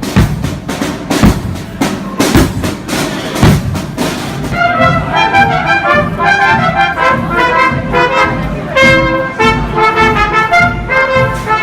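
Music with brass and percussion: heavy drum hits for the first few seconds, then a brass section playing a fast, busy run of short notes over a steady beat.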